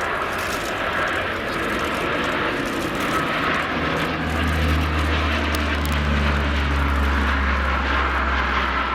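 Lockheed P-3 Orion's four Allison T56 turboprop engines on a slow, low flypast with undercarriage down. There is a steady whine, and a deep propeller thrum comes in strongly about four seconds in as the aircraft draws level.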